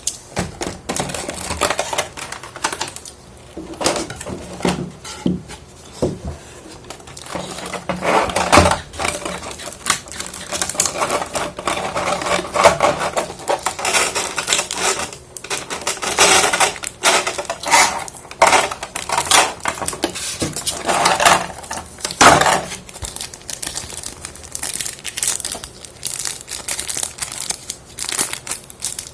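Hands unpacking a boxed plastic figure: crinkling plastic packaging and irregular clicks and taps of small plastic parts, close to the microphone.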